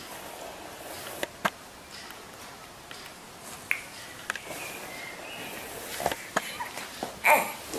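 Quiet indoor room noise with a few soft clicks and taps, a faint high squeak in the middle, and a louder short sound near the end.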